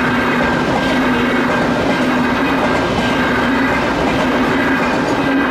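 A train passing at close range: a loud, steady rumble of wheels on rail with a steady hum running through it.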